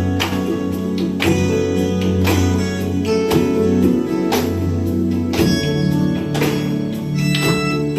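Music led by guitar over a held bass line, with a strong note or chord struck about once a second; the bass shifts to a new note about five and a half seconds in.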